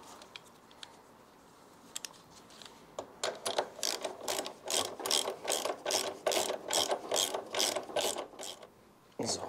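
Ratchet wrench tightening the nut on a scooter's upper rear-shock mount: a few faint clicks, then about three seconds in a steady run of sharp clicks, three to four a second, that stops just before the end.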